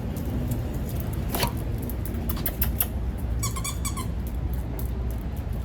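A puppy moving about, with scattered clicks and scuffles, and about three and a half seconds in a short run of quick high-pitched whimpers, over a steady low room hum.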